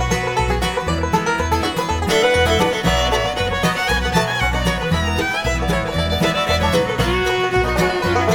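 Bluegrass band playing an instrumental break between sung verses, over a steady bass beat.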